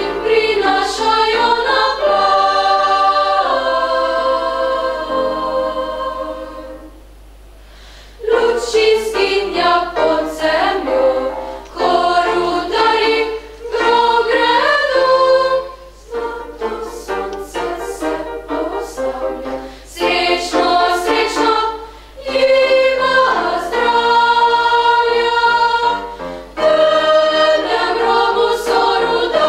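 Youth choir singing in parts, phrase by phrase with short breaks between phrases; the singing dies away about six seconds in and comes back in about two seconds later.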